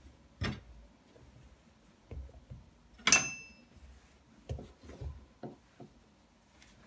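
Kitchen handling on a wooden cutting board: long eggplants set down and shifted with a few soft knocks. One sharp clink with a brief ring about three seconds in, as a kitchen knife is taken up.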